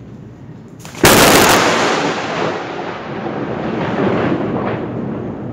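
Close lightning strike: a sudden sharp thunderclap about a second in, followed by a rolling rumble that slowly fades and swells again briefly near the end.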